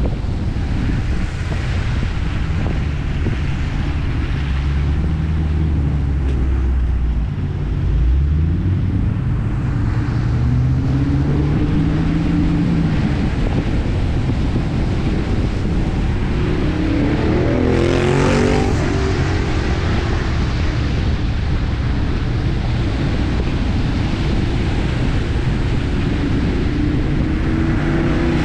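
Dodge Challenger R/T's 5.7-litre HEMI V8 running as the car drives, its revs falling and rising several times, over steady tyre and wind noise on a wet road. About 18 seconds in there is a brief louder swell of rising and falling tones.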